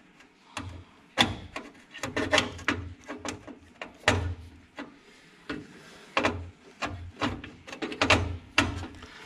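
Irregular clicks, knocks and rubbing of a screwdriver and wires being worked inside the sheet-metal control compartment of an electric furnace, with a few duller thuds among them.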